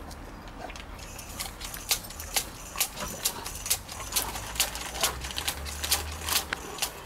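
Irregular sharp clicks and taps, about two or three a second, over a low steady hum.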